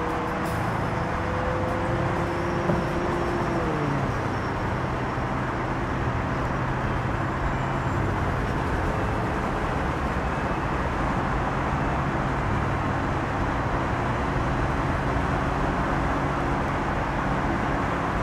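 Porsche Macan SUV driving at cruising speed, a steady engine note under tyre and road noise. About four seconds in the engine pitch drops sharply, then holds low and steady.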